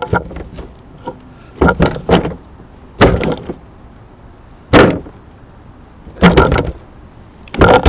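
A bass flopping on the deck of a plastic kayak while it is being unhooked: six or seven sudden bursts of knocks and rattles against the hollow hull, a second or so apart.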